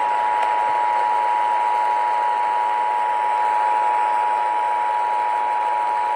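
Emergency Alert System attention signal: the steady two-tone alarm, received over radio with a hiss of static beneath it. It heralds a Flash Flood Warning message.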